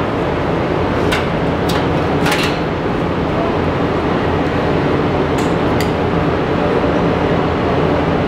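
Steady mechanical drone of a busy auto workshop, with a few short, sharp noises over it, three in the first couple of seconds and two more around the middle.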